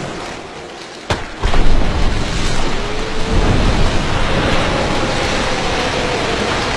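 A sharp crack about a second in, then a heavy crash of water as the breaching whale hits the surface, followed by a long, steady rush of falling spray and splashing.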